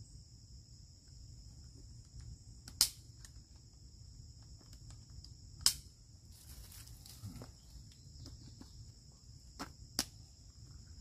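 Three sharp clicks a few seconds apart as a strap-mounted trail camera is handled on a tree trunk, with soft rustling, over a steady high-pitched insect chorus.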